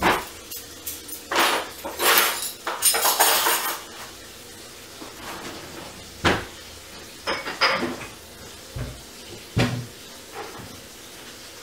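Household clatter and knocks: a dense run of clinks and rattles in the first few seconds, then scattered single knocks and two dull low thumps later on.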